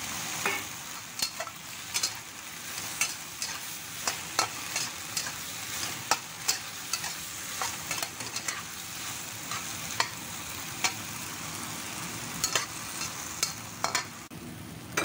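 Metal wok spatula scraping and clinking against a wok as vegetables are stir-fried, with sharp irregular clinks about once or twice a second over a steady frying sizzle.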